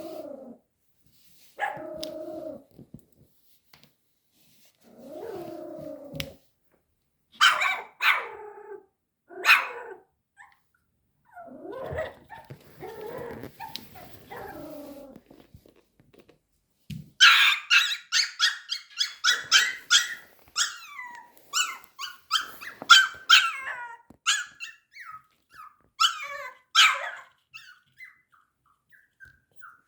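Pomeranian puppy growling low, then giving a few sharp barks. From a little past halfway comes a fast run of high, yapping barks. The puppy is barking out of fear of a toy tiger.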